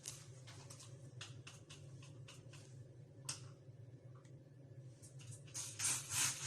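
Light clicks and taps of items being handled, then from about five seconds in a quick run of short hissing strokes, about three a second: a trigger spray bottle of refrigerator cleaner being pumped inside the fridge. A steady low hum sits underneath.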